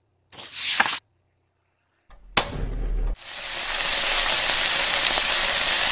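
A short whoosh, then a click and a brief low rumble about two seconds in, then a steady frying sizzle that swells up and holds: the cartoon sound of a lidded frying pan heating over a flame.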